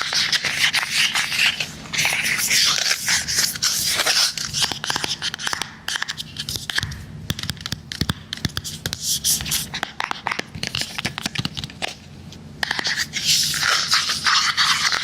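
Close-miked ASMR scratching and tapping on a device: dense scratchy rubbing with many quick clicks. It is loudest at the start and again near the end, with a thinner stretch of separate taps and clicks in the middle.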